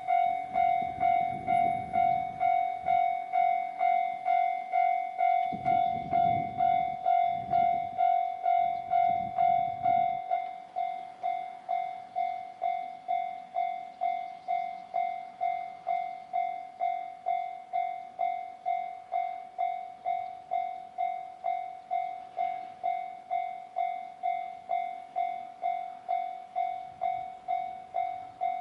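Japanese level-crossing warning bell ringing its steady 'kan-kan' at about two strokes a second. About ten seconds in it turns noticeably quieter. A low rumble comes and goes beneath it during the first ten seconds and stops when the bell quietens.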